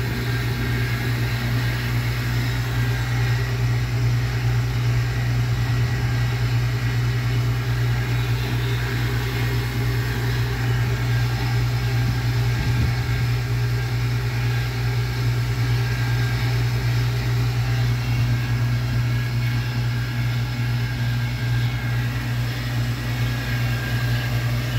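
Van Norman No. 304 brake drum lathe running, a steady, even low mechanical hum that does not change.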